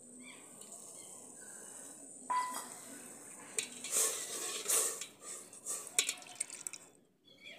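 A steel ladle stirs soaked rice in water in a brass pot, scraping and clinking against the metal. It is fairly quiet at first, and the stirring starts about two seconds in, with sharp clinks near the end.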